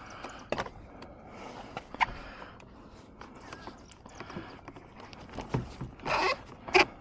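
Hands working plastic car-door parts back into place: scattered small clicks and scraping, with a louder scrape and a sharp click near the end.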